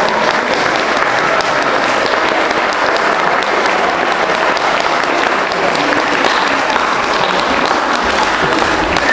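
Audience applauding steadily: dense, sustained clapping.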